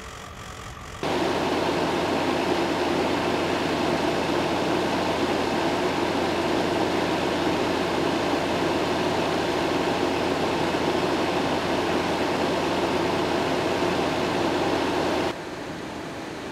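Fire engine running steadily while drafting water from a portable tank through its hard suction hose. The loud, even noise starts abruptly about a second in and cuts off shortly before the end.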